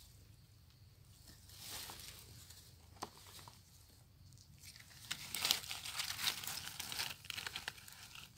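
Dry leaf litter and grass stems rustling and crackling as a gloved hand pushes through them, louder in the second half, with a single sharp click about three seconds in.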